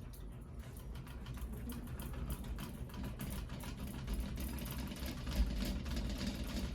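Flush-mounted three-blade ceiling fan running, with a low hum and a fast, fine rattle that the owner puts down to the light globe rattling.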